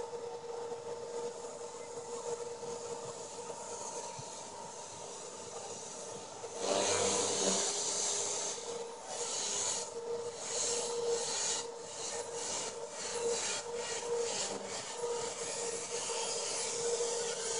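Compass Warp 360 RC helicopter flying at a distance: a steady rotor and motor whine. About six and a half seconds in, a louder hiss joins it and surges and fades repeatedly.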